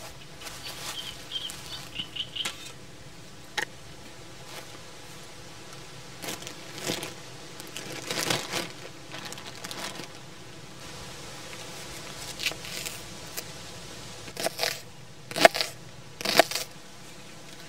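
Plastic zip-lock bag being handled and pulled open, crinkling, then a knife chopping an onion on a plastic cutting board: three sharp chops near the end, the last two the loudest.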